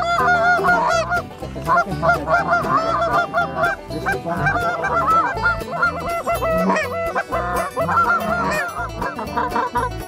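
Canada goose honks and clucks, many overlapping in a rapid, continuous chorus.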